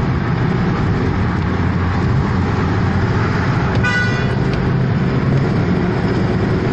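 Steady engine and road rumble heard from inside a car driving at highway speed. A brief car horn toot sounds about four seconds in.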